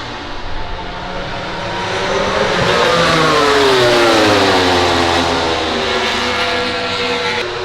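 A MotoGP racing motorcycle's four-cylinder four-stroke engine at high revs passing by, growing louder over a couple of seconds, then its note falling in pitch as it goes past and fades.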